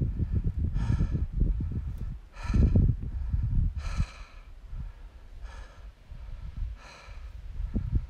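A hiker's heavy breathing while climbing a steep trail: a loud breath about every second and a half, over a constant low rumble on the microphone.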